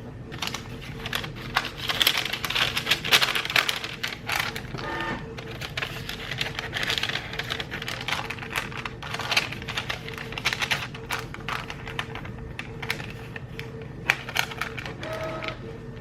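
Rapid, irregular clicking and tapping like typing on a computer keyboard, over soft background music with steady tones.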